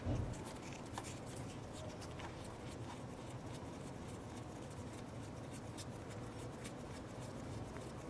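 Small scratchy clicks of a Mk4 Volkswagen Golf oil pressure switch being turned into its threaded port by hand, over a steady low background hum. A dull thump comes right at the start.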